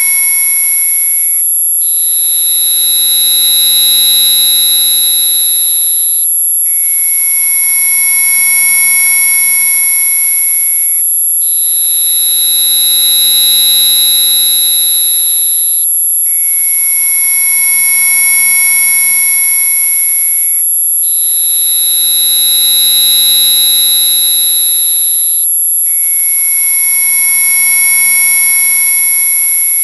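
Synthesized electronic tones from a mosquito-repellent tone track. A steady, piercing very high tone runs throughout, while a second tone switches between a lower and a higher pitch about every five seconds, with a brief dropout at each switch.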